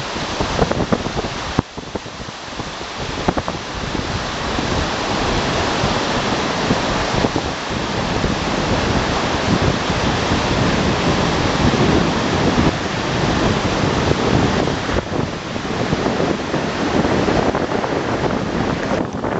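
Steady, loud rush of water and rain as a vehicle fords a river, with water splashing against it.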